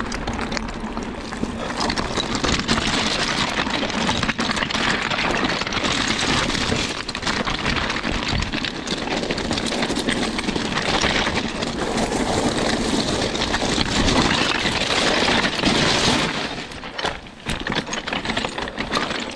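Mountain bike being ridden along a trail: steady tyre and wind noise with the bike's clicking and rattling throughout, easing off briefly near the end.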